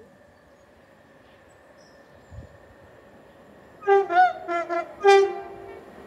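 Approaching electric passenger train sounding its two-tone horn in a quick run of short blasts about two-thirds of the way in, high and low notes alternating over about a second and a half. The blasts sit over the faint steady hum of the train on the way in.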